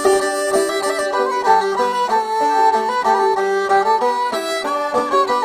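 Instrumental music: a fiddle melody over picked strings.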